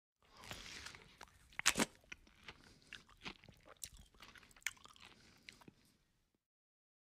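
Close-up chewing of a mouthful of rice and duck curry: irregular wet clicks and crunches, the loudest a little under two seconds in, cutting off abruptly about six seconds in.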